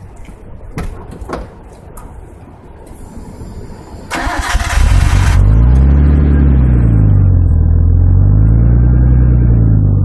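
A few small clicks at the exhaust tip, then about four seconds in a short burst of starter cranking before the Nissan Skyline HCR32's RB20 straight-six catches. It settles into a loud idle heard close at the tailpipe of its Capton straight-through muffler, the pitch swaying slowly up and down.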